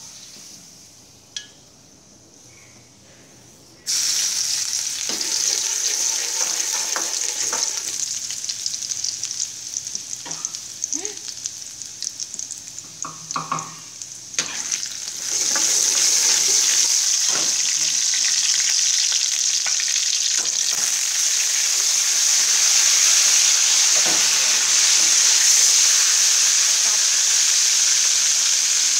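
Hot oil starting to sizzle suddenly in a steel wok about four seconds in, with scattered clicks and knocks. About halfway through the sizzle grows louder and steadier as chopped garlic fries in the oil.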